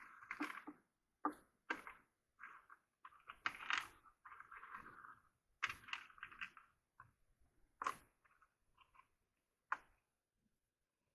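Small RC car parts and tools being handled by hand: an irregular series of sharp clicks and short plastic-and-metal rattles, thinning out near the end.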